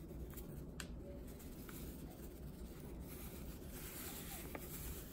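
Faint rustling of a bag of Andy's seasoning breading as it is shaken out over a plate of flour, with a soft, even hiss from the pouring powder.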